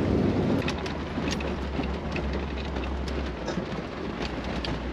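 Jeep CJ's LS1 V8 engine running low and steady at slow driving speed, with scattered light ticks over it.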